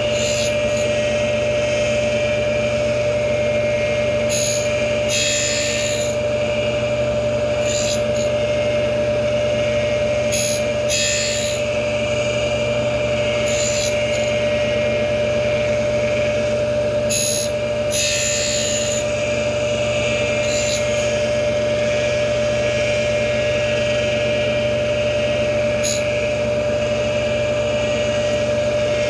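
Tool post grinder running with a steady high whine while its wheel grinds the teeth of a horizontal mill cutter. Short hissing bursts of wheel on steel come every couple of seconds as each tooth is run across the wheel.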